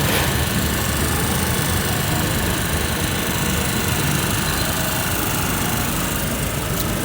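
A steady engine-like drone: a constant low hum under a broad hiss.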